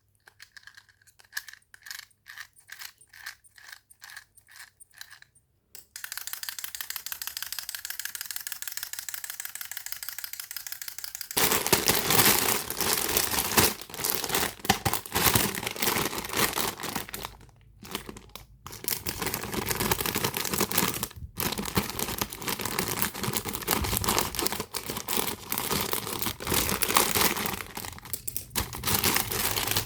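A clockwork wind-up chick toy: ratcheting clicks of the key being wound, about three a second, then the spring mechanism running with a steady whir for about five seconds. Loud crinkling of plastic packaging then takes over for the rest.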